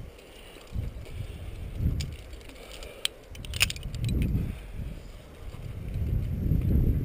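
Gusty wind rumbling on a GoPro's microphone, with a few sharp metallic clinks of climbing carabiners and quickdraws around the middle, the loudest a little past halfway. The rumble swells again near the end.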